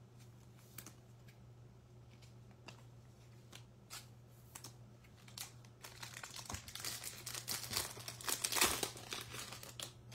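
Foil wrapper of a 2022 Bowman baseball card pack crinkling as it is handled and torn open: a few light ticks at first, then dense crinkling that is loudest about two-thirds of the way through.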